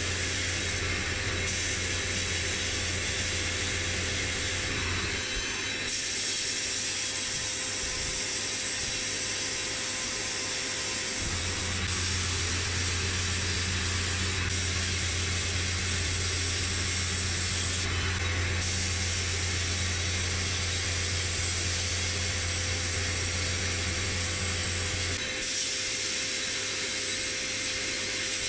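Media blasting cabinet's blast gun spraying abrasive in a steady hiss, stripping rust from a metal stove part. The hiss dips briefly a few times, and a low hum beneath it cuts out about five seconds in, comes back about eleven seconds in and stops again near the end.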